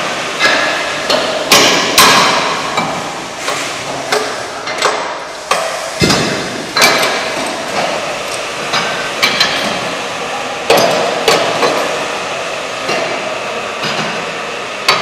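Steel concrete-pole moulds being bolted shut by hand: irregular metallic clanks and knocks of wrenches striking the mould's bolts and flanges, roughly one a second, with ringing after each strike. Several workers work at once.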